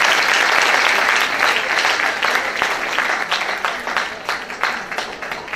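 Audience applauding. Full and dense at first, it thins out toward the end into scattered individual claps.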